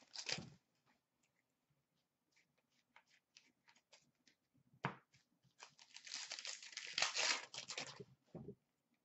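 Trading-card pack wrapper tearing and crinkling in the hands, in short bursts. There is a brief rustle at the start, a sharp crackle about five seconds in, and a longer stretch of crinkling from about six to eight seconds.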